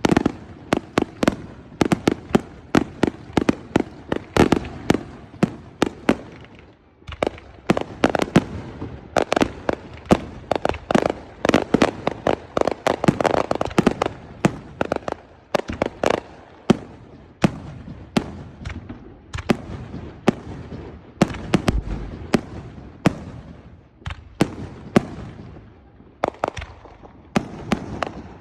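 Fireworks going off in rapid succession, several sharp bangs a second. The barrage is densest around the middle, with short lulls about a quarter of the way in and again near the end.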